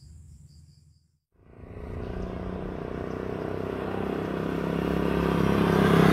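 Crickets chirping for about the first second; then, after a brief gap, a motor vehicle's engine comes in and grows steadily louder.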